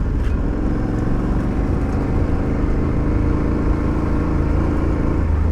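Aprilia Tuareg 660's parallel-twin engine running at a steady note while riding a dirt track, with a deeper rumble coming in near the end.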